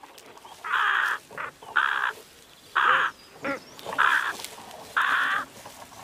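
Carrion crows cawing at their nest: five harsh caws about a second apart, with softer calls between.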